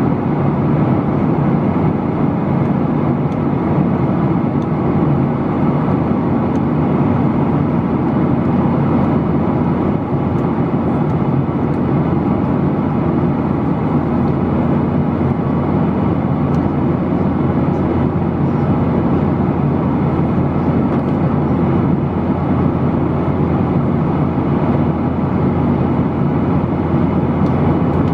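Steady cabin noise of a Boeing 737-800 in cruise flight, heard from a window seat over the wing: an even rumble of airflow and the hum of its CFM56-7B turbofan engines.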